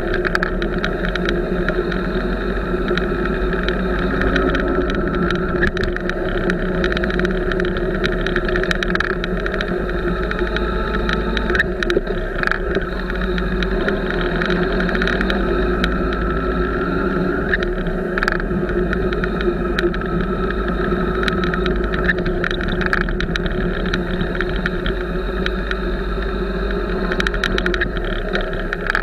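Motorcycle engine running steadily while the bike cruises, picked up by a camera mounted on the bike. Scattered brief clicks and knocks run through it.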